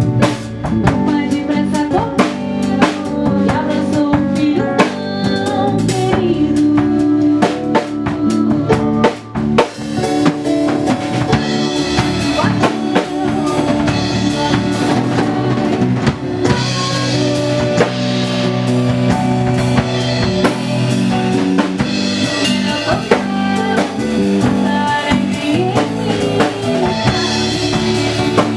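A band playing a song, with a drum kit keeping time on bass drum and snare under sustained pitched instruments. The cymbals get brighter from about twelve seconds in.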